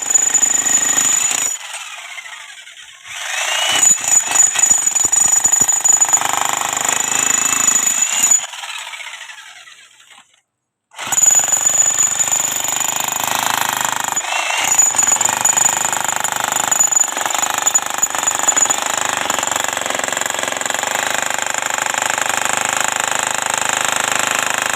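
A power tool running with a steady high whine, in long runs that stop and start again. It is used on a wood-plastic composite (WPC) panel installation.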